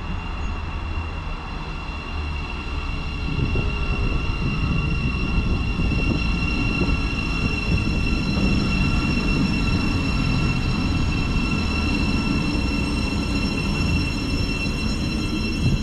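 A Thameslink Class 700 electric multiple unit arriving and running slowly along the platform. Its rumble grows louder about three seconds in as it draws close, under a steady high-pitched whine.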